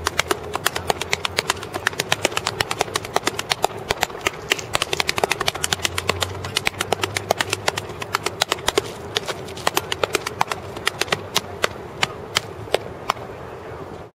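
Step dancing: a fast, uneven run of sharp hand claps, body slaps and foot stomps, dozens of hits, over a steady outdoor hum.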